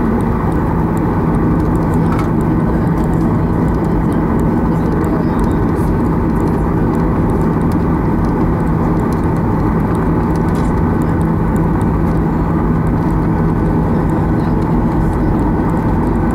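Steady cabin noise of a Boeing 737-800 taxiing, heard from inside the cabin: its CFM56-7B engines at low taxi power give an even hum with a steady low tone.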